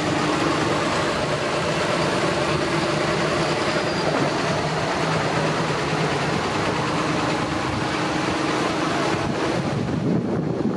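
A procession of large John Deere and New Holland farm tractors driving past close by, their diesel engines running steadily with a continuous heavy rumble.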